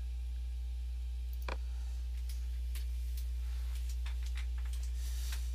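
Steady low electrical hum under the recording, with a few sparse soft clicks.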